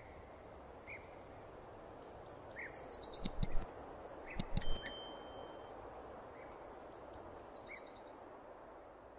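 European robin singing short high, descending trilled phrases, one about three seconds in and another near eight seconds, with scattered single notes over a steady outdoor hiss. In the middle come a few sharp clicks and then a bright ringing ding, the loudest sound, from a subscribe-button animation.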